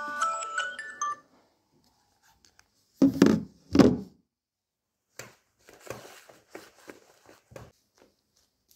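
A phone alarm plays a quick melody of short notes and cuts off about a second in as it is silenced. Two loud, dull thumps follow about three and four seconds in, then faint scattered knocks and rustling.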